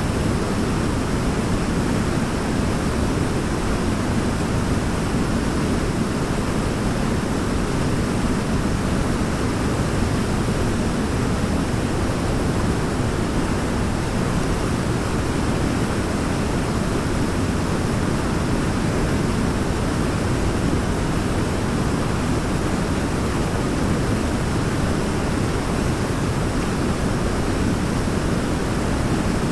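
Waterfall: a steady, unbroken rush of falling water, deepest in the low end, with no distinct splashes or changes.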